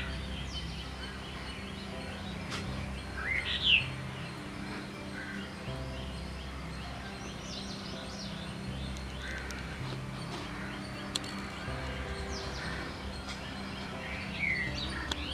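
Small birds chirping, short calls gliding up and down every few seconds, over soft background music.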